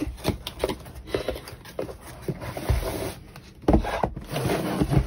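Cardboard kit box and its contents being handled and opened: irregular rustling and scraping with a few soft knocks, the strongest near the end.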